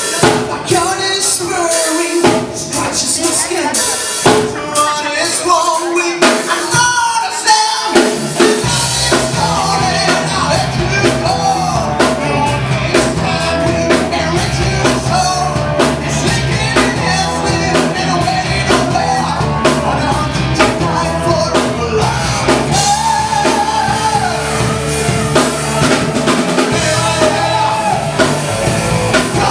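Live band playing a song with a singing voice and drum kit; the bass comes in about eight seconds in and the full band plays on.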